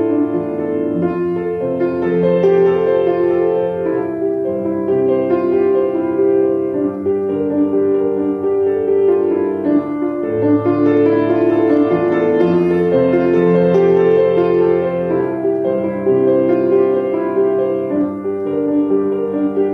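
Solo piano playing a gentle, flowing piece: a moving line of notes over held bass notes, with new bass notes about a second in and again about ten seconds in.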